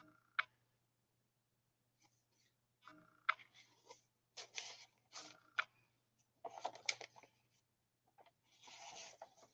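Paper handling on a handmade journal: a tag card slid in and out of a paper pocket with light rustles, clicks and taps, then a longer rustle near the end as a thick page is turned.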